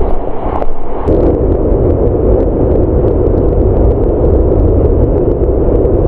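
Steady heavy rush of a large waterfall in strong monsoon flow, dipping briefly about a second in.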